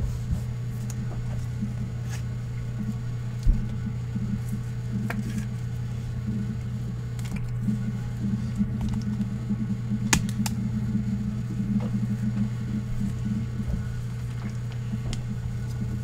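Trading cards being handled and shuffled in gloved hands, with scattered light clicks and rustles and a sharper click about ten seconds in, over a steady low electrical hum.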